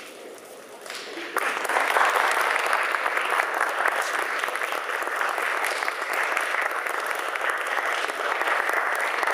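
Audience applauding: a hall full of clapping breaks out about a second in and keeps going steadily.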